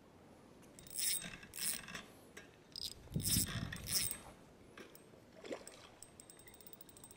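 Hooked carp thrashing in shallow water at the shoreline, splashing several times between about one and four seconds in, with one smaller splash later. Near the end comes a fast run of fine ticks.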